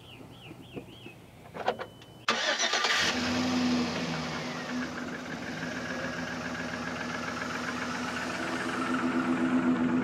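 A 2011 Chevrolet Silverado's 5.3-litre V8 starting: a short crank about two seconds in, catching at once and settling into a steady idle that grows louder near the end. A bird chirps faintly and a couple of clicks sound before the start.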